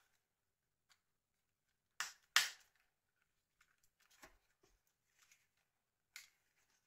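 Sharp clicks and taps of small plastic Nokia 6070 phone parts being handled: two loud clicks close together about two seconds in, then a few fainter ticks.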